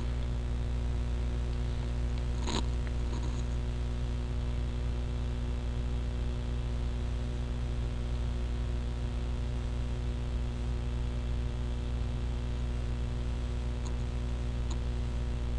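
Steady low electrical hum with a computer mouse clicking twice in the first few seconds, and two faint ticks near the end.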